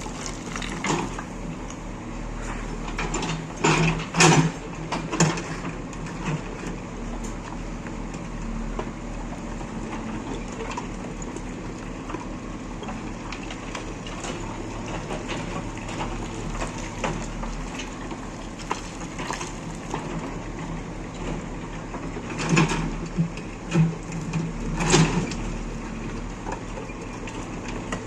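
Heavy diesel engine running steadily, with two spells of loud clanking and crunching, about four seconds in and again around 23 to 25 seconds in.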